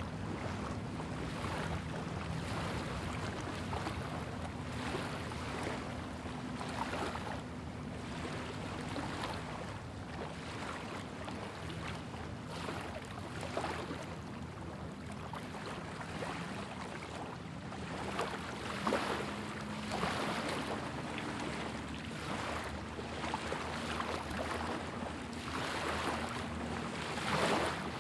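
Small lagoon waves lapping onto a sandy shore, coming in soft washes every second or two. A faint steady low hum runs underneath.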